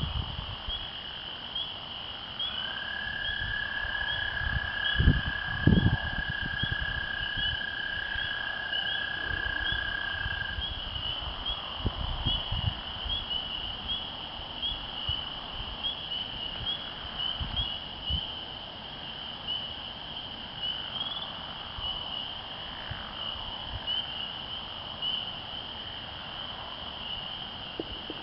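A chorus of spring peepers, many high peeps overlapping in a steady band. An American toad's long, steady trill starts a couple of seconds in and runs for about eight seconds. A few low thumps come about five seconds in.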